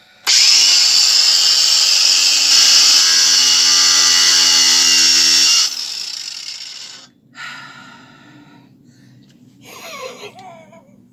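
Cordless angle grinder starting with a high-pitched whine and running for about five seconds as it cuts a plastic chopping board, then switched off and winding down. A woman laughs near the end.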